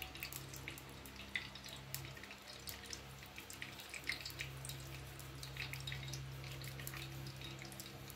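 Ghee heating in a pot for deep-frying, giving off faint, irregular small crackles and pops, over a steady low hum.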